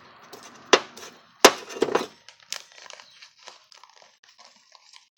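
Foam slime beads being knocked and shaken out of a clear bowl into a plastic bag. There are several sharp knocks of the bowl, the loudest about one and a half seconds in, among a light scatter of clicks and rustling.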